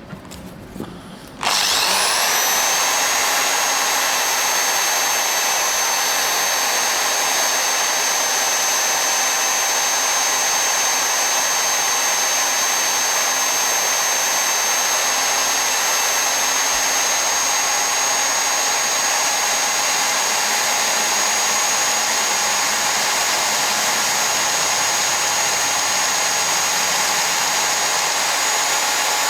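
Handheld electric drill starting about a second and a half in, then running at a steady high-pitched whine. It is hand-drilling a 1.5 mm hole into a tough die-cast door handle, and the going is slow.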